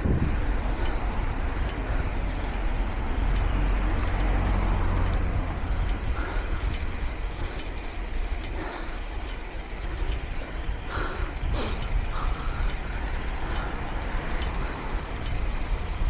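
Wind rushing over an action camera's microphone while cycling, a steady low rumble with road and tyre noise underneath.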